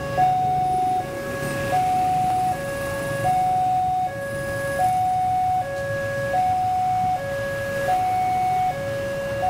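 Railway level crossing warning alarm sounding a steady hi-lo two-tone pattern, switching notes about every three-quarters of a second, to warn that a train is approaching. A low rumble runs beneath it.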